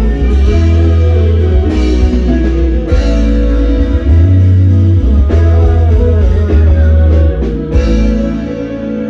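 Loud band music with a heavy bass line, guitar and drums. The deep bass stops about eight seconds in and the music gets quieter.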